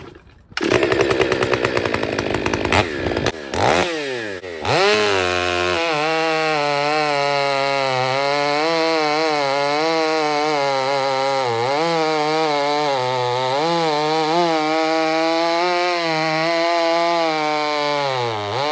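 Husqvarna 500i chainsaw blipped and revved for the first few seconds, then held at full throttle through one long bucking cut in a big log, its pitch dipping now and then under load. It comes off the wood near the end.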